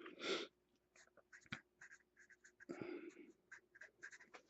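Faint handling of trading cards and their packaging: scattered soft clicks and taps, with two brief rustles, one near the start and one about three seconds in.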